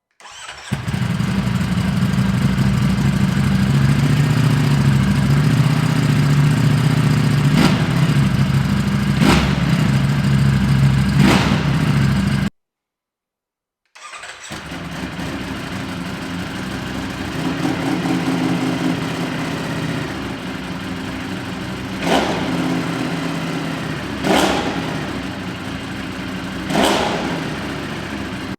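Ducati Streetfighter V4S V4 engine idling with short throttle blips, heard in two takes for an exhaust comparison. The first take is louder and deeper at idle, with three quick revs. After a brief cut, the second take is quieter, again with three quick revs.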